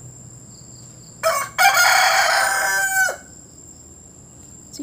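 Rooster crowing once: a short first note about a second in, then a longer held crow of about a second and a half.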